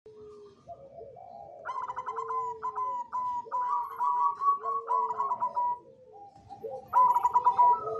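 Zebra dove (perkutut cemani) cooing: a soft, low drawn-out coo, then a long phrase of rapid trilled coos starting near two seconds in, and a louder trilled phrase starting near seven seconds.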